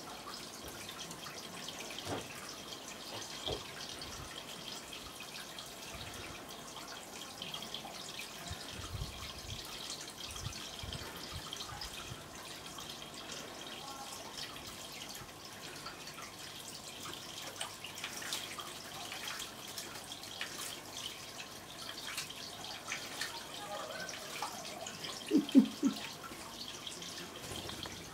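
Small stone garden fountain: water pours from a spout into a stone basin, trickling and dripping steadily. About 25 seconds in, a few short, louder sounds stand out.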